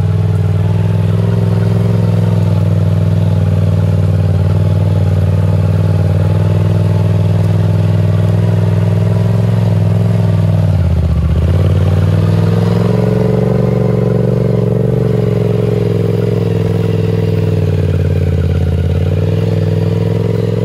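Polaris RZR Turbo's turbocharged twin-cylinder engine held at high revs in a burnout, its rear tires spinning on dirt. The revs drop briefly about halfway through and again near the end, then climb back.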